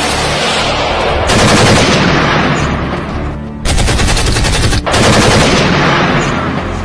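Machine-gun fire: rapid automatic shots in long bursts, with fresh bursts breaking in about a second in and again near the middle.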